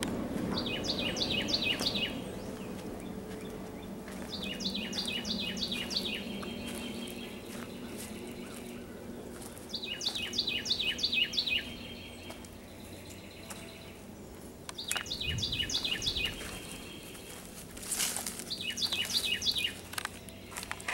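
A songbird singing the same short phrase of quick falling notes five times, about every four to five seconds, over a low steady hum that fades away in the first half.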